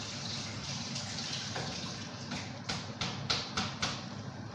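A covered aluminium stockpot of soup cooking on the stove, giving a steady watery hiss of boiling. A quick run of about six sharp ticks comes about two to four seconds in.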